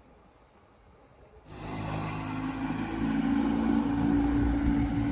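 Outboard motor of a flat-bottomed river boat running steadily under way. It starts abruptly about a second and a half in, after a quiet stretch.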